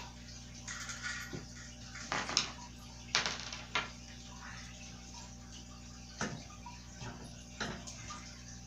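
Bike parts being handled during assembly: a series of separate clicks and clatters of plastic and metal pieces knocking together, the loudest a little over two and three seconds in. A steady low hum runs underneath.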